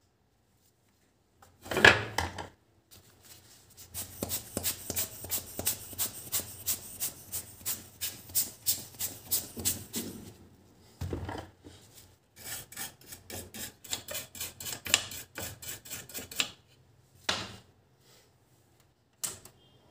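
A bristle brush scrubbing an ECM circuit board in quick back-and-forth strokes, about three a second, in two long bouts, with a few sharper knocks between them as the brush is handled on the board.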